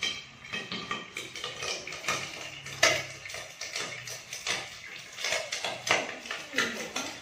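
Cookware lids clinking and clattering: a glass lid and a domed stainless-steel lid being lifted off and set on a frying pan, with a string of short knocks, the loudest about three seconds in.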